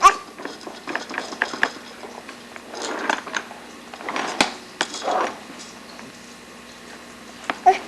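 Irregular clicking and clattering of small hard objects being handled, in short clusters with a sharp knock at the start and another about halfway through.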